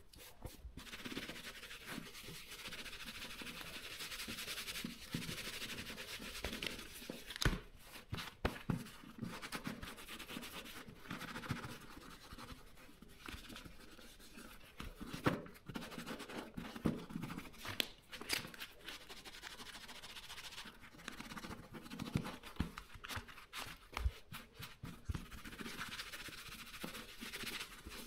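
Cloth wiping excess oil off a leather boxing glove: faint, continuous rubbing and swishing, with scattered soft knocks as the glove is turned over in the hands.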